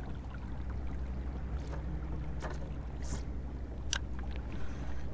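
Steady low rumble of wind and water around a small fishing boat, with a few short sharp ticks, the sharpest about four seconds in.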